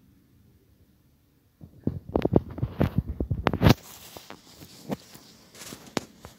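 Faint room tone, then about a second and a half in a quick, loud clatter of knocks and clicks lasting about two seconds, followed by a few scattered clicks.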